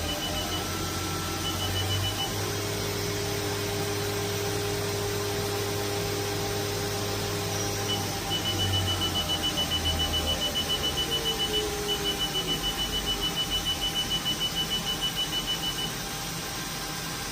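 Spindle of a 2020 Haas DM2 CNC drill/mill running at speed with a steady hum and whine, then spinning down with a falling pitch about nine to ten seconds in. Over it come runs of rapid high electronic beeps, about five a second, stopping and starting several times.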